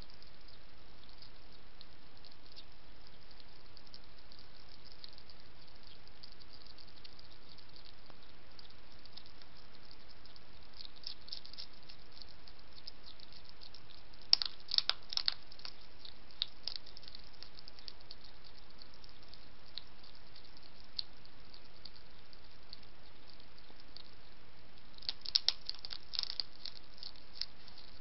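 Wild European hedgehog crunching dry kitten-food biscuits: quick runs of small crisp clicks, densest about halfway through and again near the end, over a steady background hiss.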